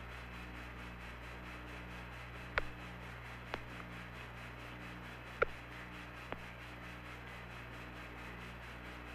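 Faint steady hiss and low hum of the Apollo 11 air-to-ground radio channel with nobody talking, broken by four short, sharp clicks, the loudest about two and a half and five and a half seconds in.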